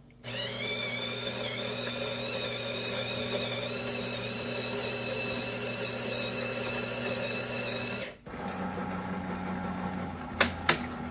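Terra Kaffe TK-02 super-automatic espresso machine starting a latte cycle: a steady motor hum for about eight seconds that stops suddenly, then a quieter hum with two sharp clicks near the end.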